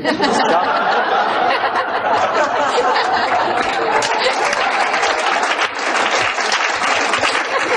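Lecture audience laughing and applauding together, a dense steady patter of many hands clapping mixed with laughter, breaking out right after a joke.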